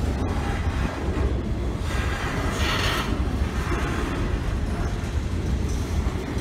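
Double-stack intermodal freight cars rolling slowly past on the rails: a steady low rumble of wheels on track, with a brief hiss about two seconds in.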